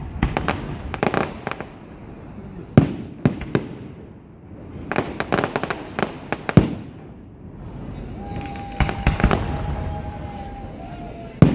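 Aerial fireworks display: clusters of sharp bangs and crackling bursts, with one heavy single bang after the third cluster. Later the bangs thin out and a steady whistling tone holds for about three seconds.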